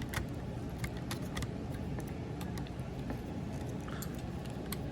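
Scattered light clicks and taps of hard plastic parts as a Masterpiece Movie Ratchet Transformers figure is handled and a piece is pressed into its tab.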